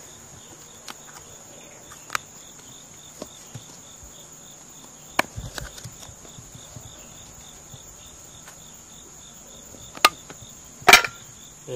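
Insects chirping steadily in a fast, even pulse, with a few sharp clicks and knocks from handling the pepper tin. The loudest knock comes near the end.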